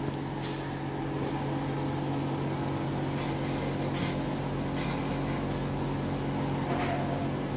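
Steady low machine hum of an automated robotic circuit-board handling cell, with a few brief faint hisses.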